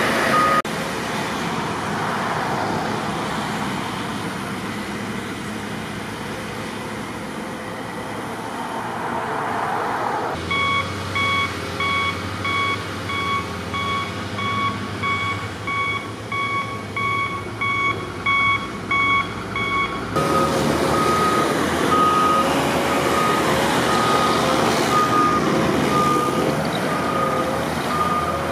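Diesel engines of heavy snow-clearing loaders and trucks running. Partway through, reverse alarms beep steadily at about one and a third beeps a second, and a second, slightly higher-pitched back-up alarm takes over later on.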